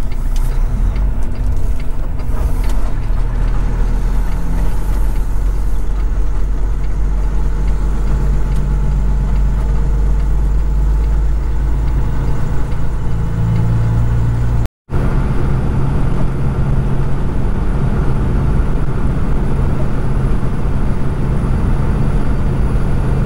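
Kenworth road train's diesel engine running under way, a steady drone with heavy low rumble and road noise. The sound cuts out completely for a moment about fifteen seconds in, then resumes with a slightly different engine note.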